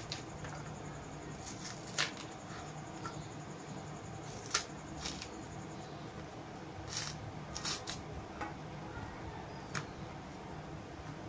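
Raw green bananas being peeled with a small kitchen knife: a handful of short, sharp clicks and scrapes of the blade and stiff peel, spaced irregularly, over a steady low hum.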